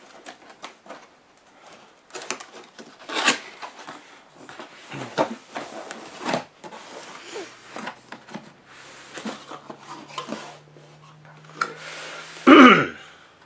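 Cardboard laptop box being opened by hand: flaps pulled and lid lifted, with cardboard rubbing and scraping and scattered light clicks and knocks. About a second before the end comes one brief, louder scrape.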